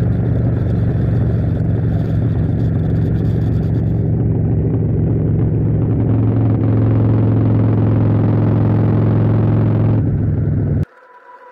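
Motorcycle engine running steadily while riding, cutting off abruptly near the end.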